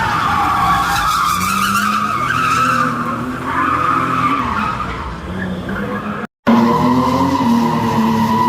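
Tyres squealing in a long skid over an engine running at high revs. The sound cuts out abruptly for a moment about six seconds in, then the squeal and engine resume, steadier.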